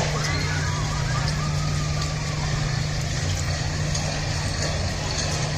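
Funfair ambience: a steady low machinery hum, with faint distant voices and scattered light clicks over it.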